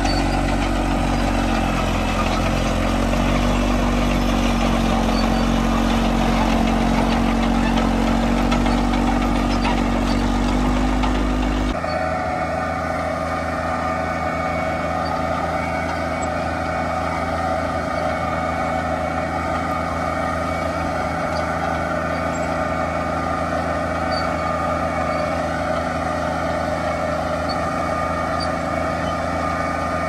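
Allis-Chalmers crawler tractors' Detroit Diesel two-stroke engines running steadily under load while pulling ploughs. About twelve seconds in, the sound cuts to a different crawler with a higher-pitched engine note.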